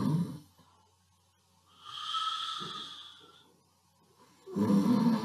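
A man imitating snoring: a low rasping snore that ends just after the start, a softer whistling breath out about two seconds in, then another snore starting near the end.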